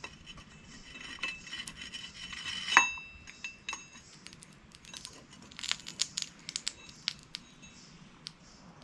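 Light metallic clinks and ticks, some with a faint ringing tone: one louder clink about three seconds in and a quick run of sharp ticks a little past the middle.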